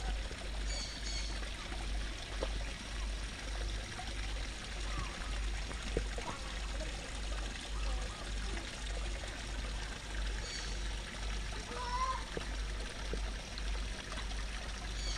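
Water pouring from a small rock waterfall into a garden koi pond, a steady splashing rush.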